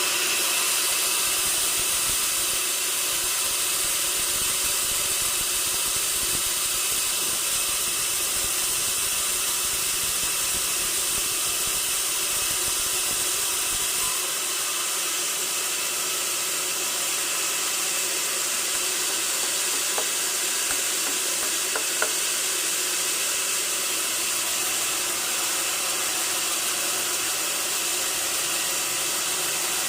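Sawmill saw running steadily, a continuous high hiss with little low end, and a couple of faint clicks in the second half.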